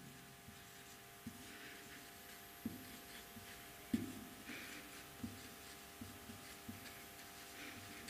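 Marker pen writing on a whiteboard: faint scratchy strokes, with a few light taps as the tip meets the board.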